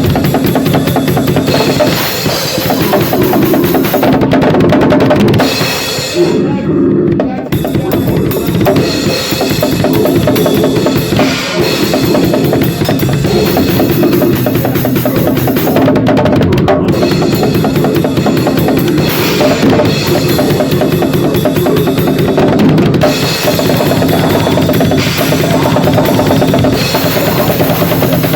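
Drum kit played loud and fast without a break, bass drum and snare driving dense rolls and fills, with a short lull in the cymbals about six seconds in.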